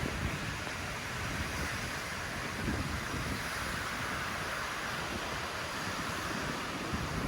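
Hurricane wind blowing, a steady rush of noise, with gusts buffeting the microphone in a low, uneven rumble.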